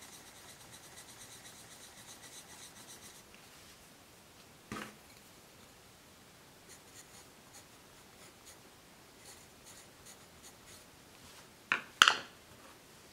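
Derwent Procolor coloured pencil scribbling rapidly on paper for about three seconds, filling in a swatch. After a single knock, lighter, scattered pencil strokes follow as the label is written, then two sharp clacks near the end.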